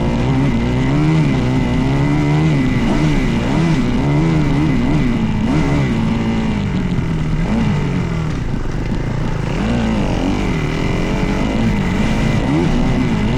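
Dirt bike engine running hard, its pitch rising and falling over and over as the throttle is worked and opened and closed.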